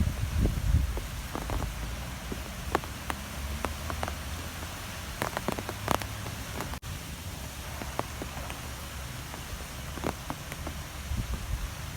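Strong wind blowing steadily with a low, gusty rumble, and scattered sharp ticks of drops or debris striking a surface. A split-second gap in the sound a little past halfway.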